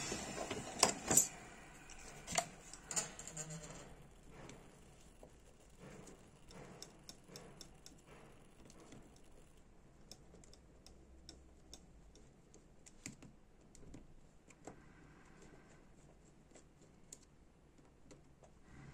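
Small metallic clicks and taps of a precision screwdriver working in the top of a Dupont L1 lighter. There are a few sharper clicks in the first few seconds, then faint, scattered ticks.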